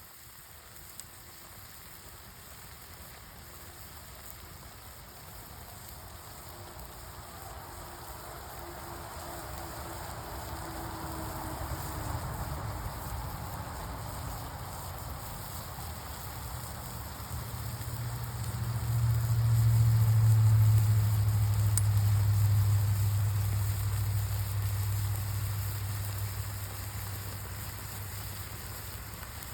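Steady hiss of food cooking over a campfire. A low hum swells up about two-thirds of the way through and fades again.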